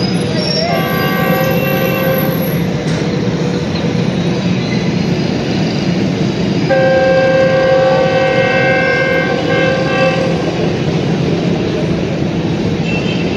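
Approaching GE U40 diesel locomotive sounding its multi-tone air horn twice: a short blast about a second in, then a longer, louder blast of three or four seconds. A steady low rumble runs underneath.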